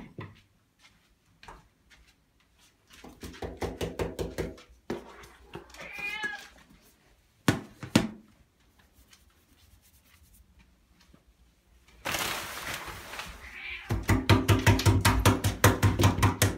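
Pit bull whining and grumbling excitedly in bursts of rapid pulsed sound, with a high wavering whine a few seconds in. A sharp knock comes near the middle and a rush of noise about twelve seconds in, then a long run of loud, rapid grumbling to the end.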